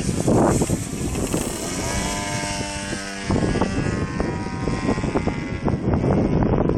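Edge 540 V3 radio-controlled model plane flying overhead, its motor and propeller whine bending in pitch as it passes, strongest around the middle. Heavy wind buffets the microphone in gusts throughout, loudest at the start and end.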